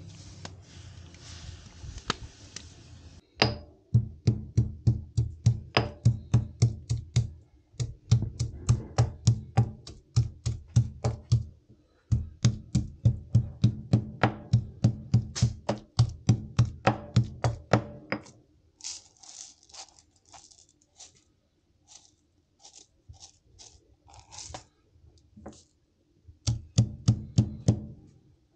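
Stone pestle pounding garlic and timur (Sichuan pepper) seeds in a mortar: rapid heavy thuds, about three or four a second, with brief pauses, lighter strikes for a while, then heavy pounding again near the end. Before the pounding starts, a few seconds of steady sizzling from stinging nettles frying in a wok.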